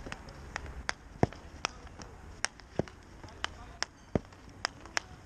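Repeated sharp clacks of field hockey balls being struck with sticks and hitting a goalkeeper's pads, about three a second.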